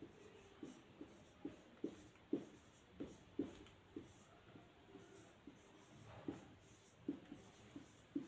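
Marker pen writing on a whiteboard: faint, short, irregular strokes, about two a second, as letters are drawn.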